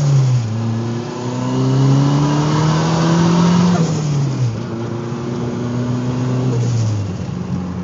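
Turbocharged Ford Mustang engine heard from inside the cabin, pulling with its pitch rising for about three seconds, dipping around four seconds in, then rising again before easing off near the end.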